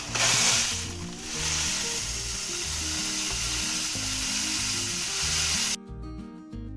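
Coarse dishwasher salt being poured into a Bosch dishwasher's salt reservoir: a steady grainy hiss with a short dip about a second in, cutting off suddenly near the end.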